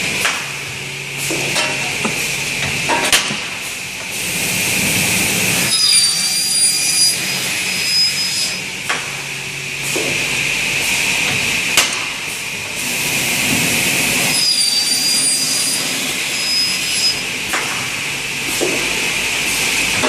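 Automatic aluminium corner connector cutting saw running in its repeating cycle, with a steady high whine, sharp knocks every few seconds and a high ringing tone about every eight seconds as it cuts aluminium corner connectors.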